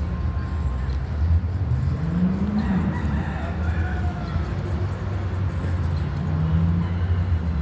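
A rooster crows once, about three seconds in, over the steady low rumble of vehicle engines, one of which rises in pitch just before the crow.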